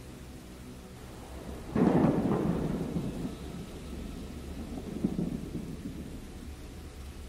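Rustling and knocking of someone rummaging around a desk and chair for a pencil: a loud burst about two seconds in, tailing off over a second, and a smaller one near five seconds, over a steady low hum.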